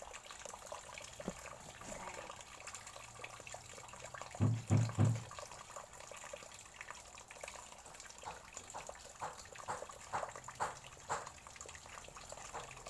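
Water trickling and dripping in an aquarium, with many small splashes and ticks. Three dull low thumps come in quick succession about four and a half seconds in.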